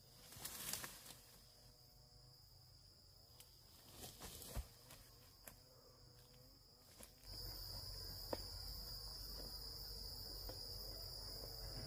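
Insects droning in a steady, high, even tone, faint at first and louder from about seven seconds in, with a few brief rustles early on.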